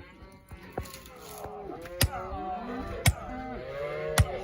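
Many cattle bawling at once in the pens, their calls overlapping and rising and falling. Three sharp knocks about a second apart stand out as the loudest sounds.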